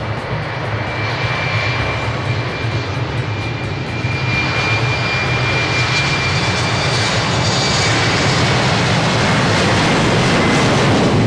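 Embraer E-Jet regional jet's General Electric CF34 turbofans running: a loud rumble and roar with a steady high whine over it, growing gradually louder as the aircraft comes closer.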